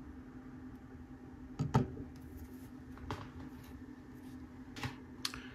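A few light knocks and clicks as a small robot drive assembly, two motors in 3D-printed mounts on an aluminium base plate, is handled and set down on a wooden desk. The loudest knock comes about a second and a half in, with a brief rustle after it. A faint steady hum runs underneath.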